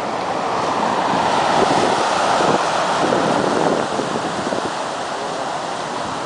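Hurricane-driven storm surf breaking and rushing up the shore, heavy and continuous, with strong wind gusting on the microphone. It is loudest in the first few seconds and eases a little about four seconds in.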